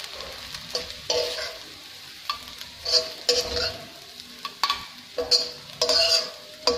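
Steel spoon scraping and stirring crumbled scrambled egg in a steel wok, each stroke ringing briefly off the metal, over a light sizzle of frying.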